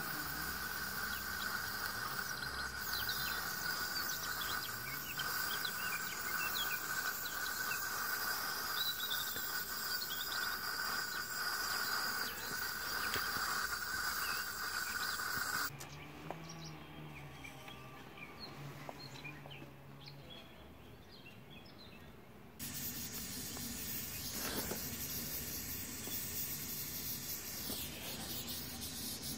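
Small gas soldering torch hissing steadily as its flame heats copper pipe for tin soldering, over a steady insect drone and occasional bird chirps. The hiss and drone drop away abruptly for several seconds a little past halfway, then come back.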